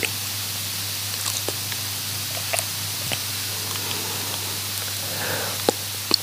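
Steady hiss and low hum from a microphone's recording chain, with a few faint clicks scattered through it.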